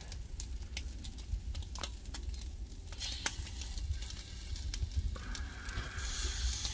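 Eel fillets sizzling faintly on a grill over charcoal, with scattered sharp clicks and crackles as metal tongs work the pieces on the grate, over a steady low rumble.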